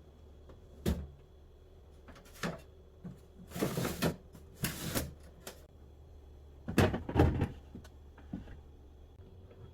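Household handling noises: a knock about a second in, two short rustling bursts a little before the middle, and a cluster of louder knocks later, over a low steady hum.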